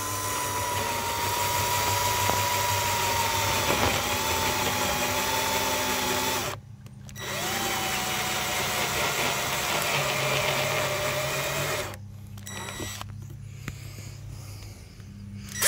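Ridgid cordless drill turning a step bit through the plastic wall of a gas can, run in two spells with a short pause about seven seconds in; the motor's whine sags a little as the bit cuts. The drill stops about twelve seconds in, leaving a much quieter background.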